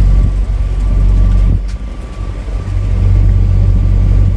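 A hire boat's engine running steadily under way: a loud, low, even hum, easing briefly about a second and a half in.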